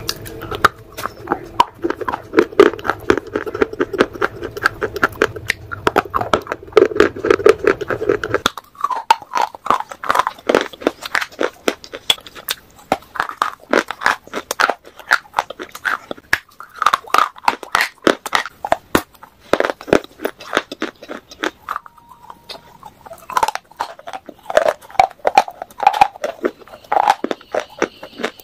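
Close-up crunching bites and chewing of dry grey clay shale bars: a dense run of sharp, brittle crunches, one bite after another. A low background hum underlies the first third and then stops.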